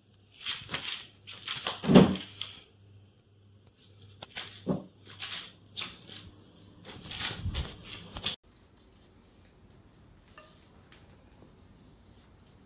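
Rustling, scraping and knocking of objects being handled, with a heavier thump about two seconds in; after about eight seconds it cuts off to a faint steady hiss.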